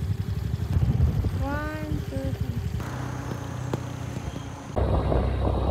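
Small motor scooter engine running at idle, with a short pitched call that rises and falls about a second and a half in. Near the end, wind buffets the microphone loudly while riding.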